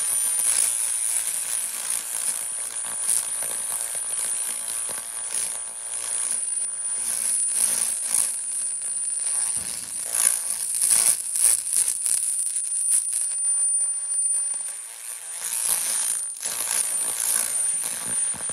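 100 W pulsed laser cleaning machine ablating carbon deposits off engine valves in a cylinder head. It makes a dense, irregular crackling hiss over a steady high-pitched whine, swelling and fading, with a brief dip about fifteen seconds in.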